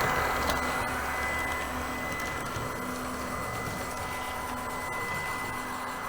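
H0-scale LUX track-vacuum car's suction motor whirring steadily as the train moves along the track, mixed with the electronic diesel-engine sound of the Märklin Henschel DHG 700 shunter pushing it. Loudest at the very start, then steady.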